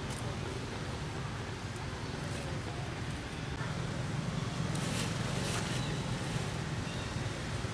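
Steady outdoor background rumble and hiss of wind on the microphone, with a few faint short clicks about five seconds in.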